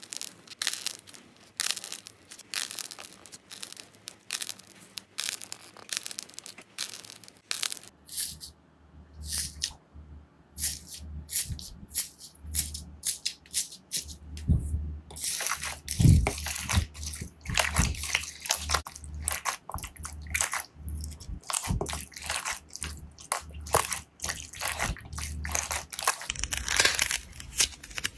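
Slime being squeezed, kneaded and pressed by hand, giving dense, irregular crackling, popping and squishing clicks. Partway through, foam beads mixed into the slime crunch under the hand, over a low rumble of handling.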